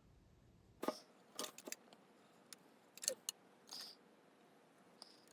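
Faint, scattered clicks and short scratchy strokes of a marker drawing cut lines on a clear Lexan body piece, with the thin plastic ticking as it is handled.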